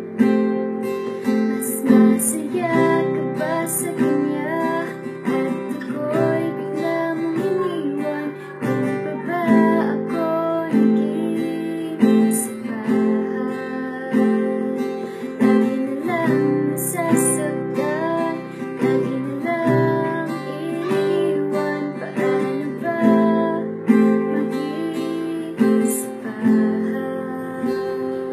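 A woman singing a slow song, accompanying herself on a strummed acoustic guitar.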